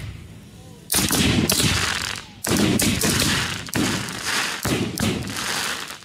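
Consumer aerial fireworks going off in quick succession. Four sharp booms come about a second apart, each trailing off in a long crackle.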